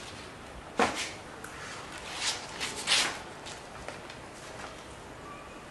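A tray of cups set down on a low table with one sharp knock, followed by a few light clatters as the cups and small items on it are moved about.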